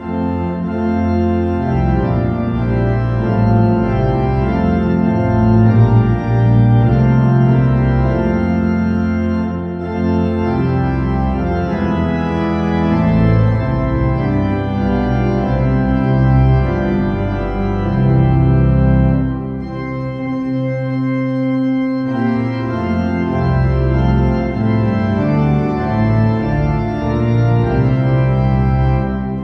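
Background music of sustained organ chords, starting abruptly and changing chord every few seconds.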